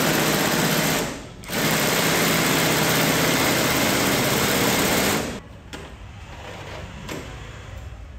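Cordless impact wrench hammering as it drives a bolt into the steel roof rack: a burst of about a second, a short pause, then about four more seconds. It stops about five seconds in.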